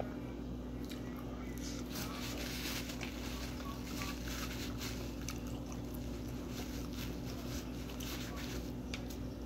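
Close-up chewing and mouth sounds of a person eating pizza, with small irregular clicks and wet smacks, over a steady low hum.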